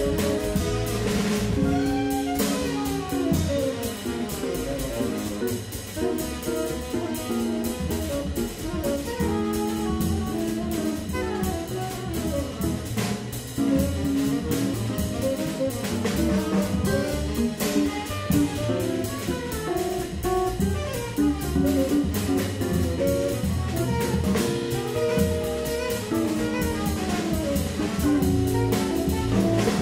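Small jazz band playing live: tenor saxophone lead line over hollow-body electric guitar, vibraphone, upright bass and drum kit with a steady ride cymbal pulse.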